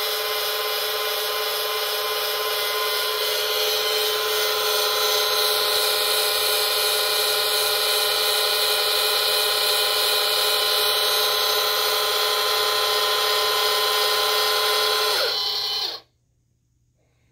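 Two electric linear actuators retracting together, their motors and gearboxes whining steadily. The whine cuts off suddenly about sixteen seconds in, as the rods reach full retraction.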